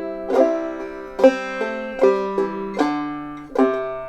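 Five-string banjo in double C tuning (gCGCD), played clawhammer style: a slow melodic phrase of plucked notes, each ringing on, with a strong stroke a little under once a second.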